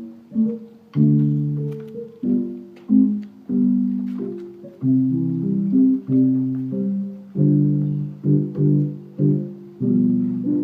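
Piano music: chords struck one after another, each fading before the next.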